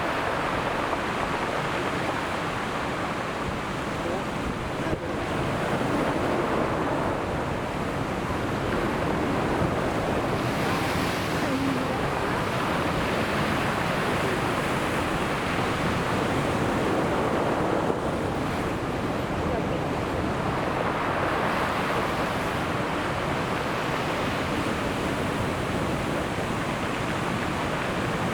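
Ocean surf washing onto the shore: a continuous rush of breaking waves that swells and eases every several seconds.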